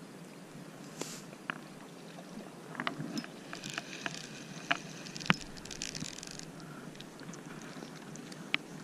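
Spinning reel being cranked to wind in a small hooked fish: a steady whirring hiss from about four to six and a half seconds in. Sharp clicks and knocks from handling the rod and reel are scattered through it, the loudest about five seconds in.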